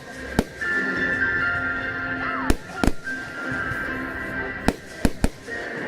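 Fireworks exploding: about six sharp bangs at irregular intervals, over music playing throughout.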